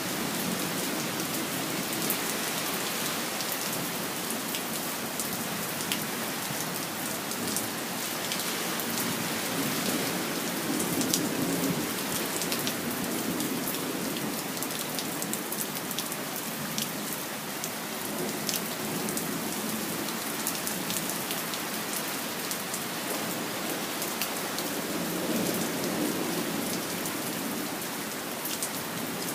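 Steady rainfall, a constant hiss of rain with many individual drops ticking sharply through it.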